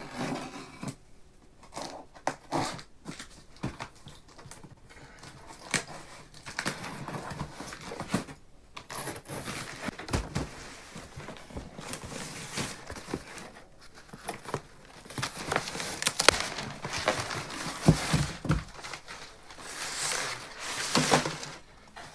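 Cardboard box and plastic packaging being torn open and handled: irregular tearing, crinkling and rustling, with a couple of heavier thumps.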